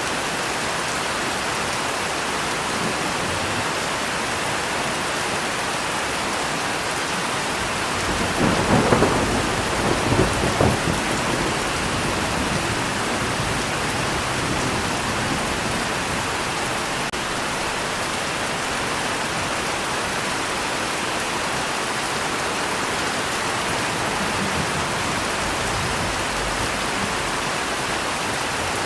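Steady heavy rain falling, with a clap of thunder rumbling about eight seconds in, swelling twice and fading over about three seconds.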